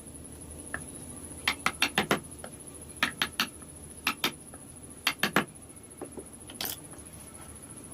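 Sharp taps of wood-carving tools in quick runs of two to four, several times over, typical of a mallet striking a carving chisel.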